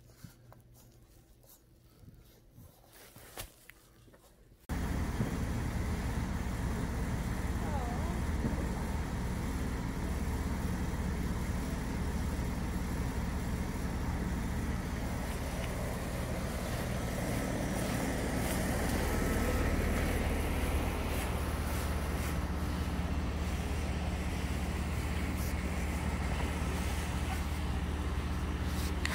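Steady vehicle noise that starts abruptly about five seconds in, heaviest at the bottom with a steady low hum, after a few seconds of quiet room tone with a few light clicks.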